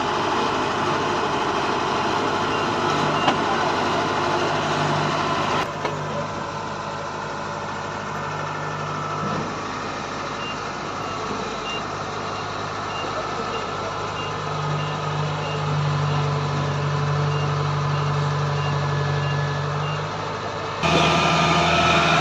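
Kubota DC-70G combine harvester's diesel engine and threshing machinery running steadily under load while cutting paddy, a dense mechanical din over an engine hum. About halfway through, a high alarm beep starts repeating about twice a second, like a reversing alarm, and stops near the end.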